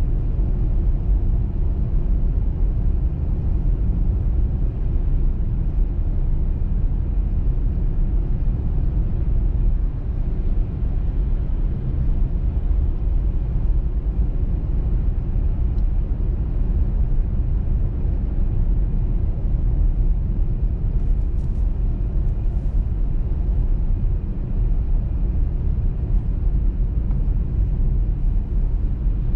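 Car driving at speed: a steady low rumble of tyres on the road and the engine.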